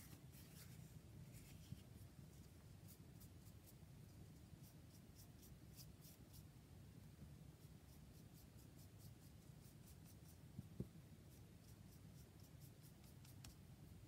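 Faint scratching of a paintbrush stroking gesso across a textured paper tag, in short repeated strokes, with one soft knock about ten and a half seconds in.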